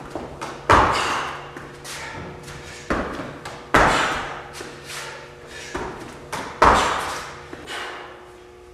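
Heavy thuds of feet landing on a rubber gym mat during repeated pike jumps: three loud landings about three seconds apart, each echoing and fading in a large hard-walled room, with lighter thumps in between.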